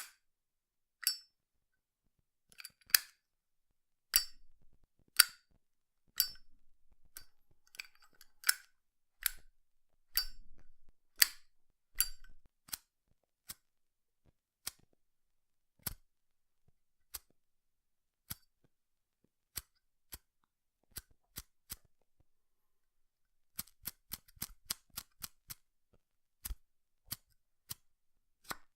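Zippo lighter being handled: a series of sharp metallic clicks and clacks as the hinged lid is flicked open and snapped shut, irregularly spaced, with a quick run of clicks a few seconds before the end.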